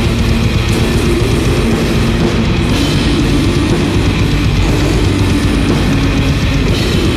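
Blackened war metal: guitars and drums in a dense, unbroken wall of sound at a steady loudness.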